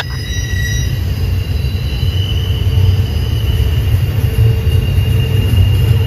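Train rolling through a tight curve: a loud, steady low rumble with a high, steady wheel-flange squeal over it that grows stronger partway through.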